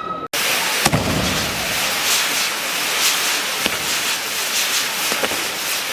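Fireworks going off: a dense, steady hiss with sharp bangs, the loudest about a second in with a deep boom, and more later. The sound starts abruptly right at the beginning.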